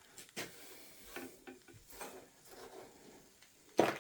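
Scattered light clicks, taps and rustles of small parts being handled, with a sharper knock near the end.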